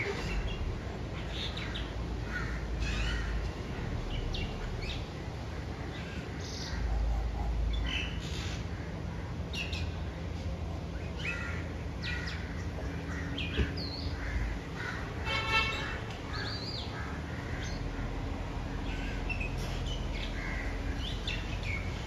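Birds calling in a tree: many short, high chirps and whistles scattered throughout, with one longer, harsh, rasping call about fifteen seconds in.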